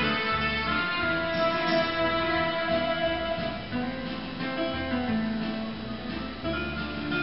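Instrumental backing of an enka song, with a plucked guitar to the fore over a steady bass line.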